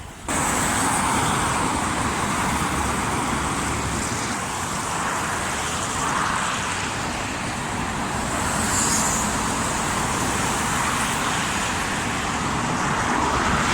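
Steady noise of road traffic passing on a city street, starting and cutting off abruptly.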